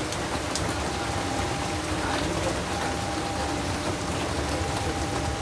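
Steady rain falling, an even hiss of rain on the ground and foliage.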